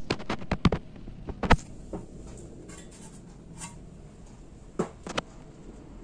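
Gree air conditioner condenser fan motor starting its 16-inch blade turning from rest, running faintly under sharp clicks and knocks: a quick cluster in the first second, the loudest knock about a second and a half in, and a couple more near the end.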